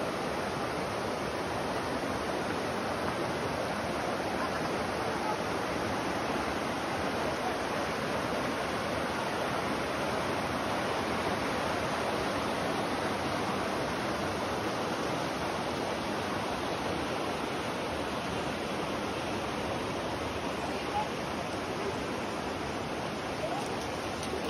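Shallow river water rushing steadily over rocks and stones in small rapids, an even, unbroken noise.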